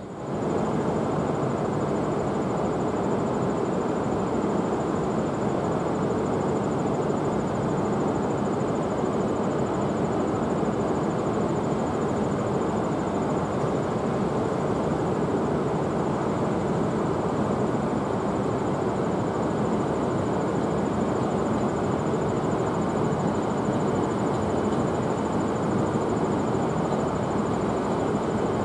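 Steady running noise of a train standing at a station platform, with a thin high whine held above it throughout. It sets in suddenly right at the start.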